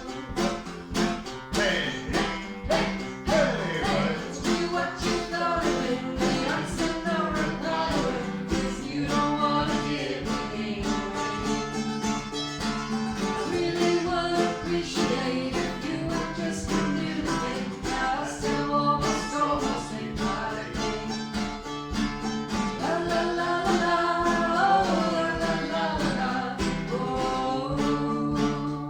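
A song performed with a voice singing over strummed and plucked strings, a mandolin among them.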